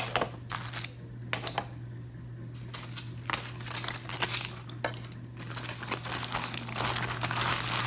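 Aluminum foil crinkling and crumpling as it is peeled back and lifted off a plate, in irregular crackly stretches with scattered sharp clicks, busiest about halfway through and near the end. A steady low hum runs underneath.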